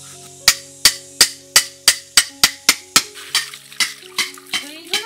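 A quick run of sharp knocks, about three a second and slightly uneven, over background music with held notes. Near the end there is a short wavering, gliding tone.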